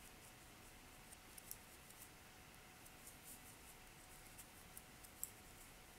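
Metal knitting needles working stitches: faint, irregular light clicks and scratches over near silence.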